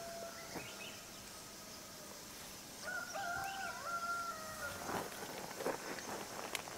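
A rooster crowing once, faintly, for about two seconds starting about three seconds in, over a steady high hiss; a few faint clicks follow near the end.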